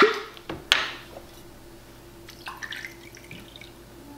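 Tequila poured from a glass bottle into a metal jigger, a soft trickle and drip, with one sharp knock just under a second in.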